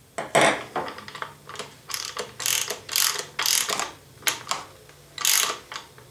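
Collet nut of a Festool plunge router being worked loose with a wrench on the shaft to take the V-point bit out: a series of about a dozen short, ratchety metal rasps at an uneven pace, the loudest about half a second in and again near the end.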